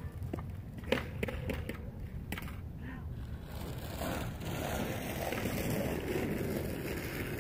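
A few sharp clacks of a skateboard in the first couple of seconds, then the rumble of its wheels rolling over asphalt, growing louder from about four seconds in as it comes closer.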